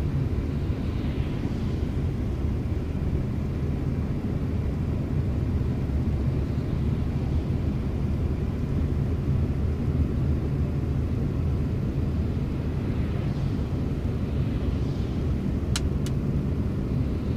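Steady low rumble of a car driving on a wet road, heard from inside the cabin, with faint swells of tyre hiss. Two sharp clicks come close together near the end.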